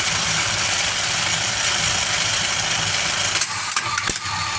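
Zeba electric sewing machine running steadily, with a couple of short clicks about three and a half seconds in, after which its running tone changes a little.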